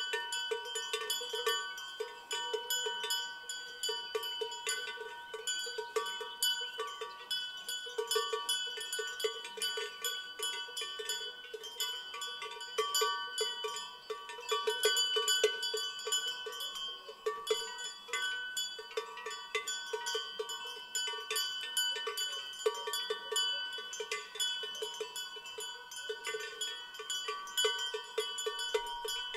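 Several cowbells on livestock clanking irregularly and without pause, their rings at different pitches overlapping.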